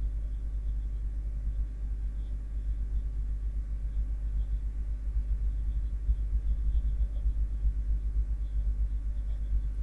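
Steady low rumble of background noise, with no other distinct sound.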